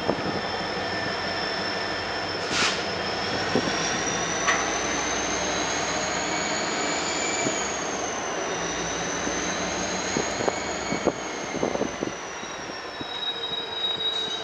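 Freight train wheels squealing as the cars roll across a steel truss bridge: a high, steady squeal that drifts slowly up and down in pitch, over the continuous noise of the rolling train.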